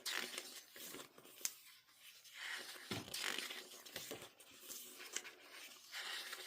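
Paper and plastic album packaging being handled: repeated rustling and sliding swishes with a few soft clicks.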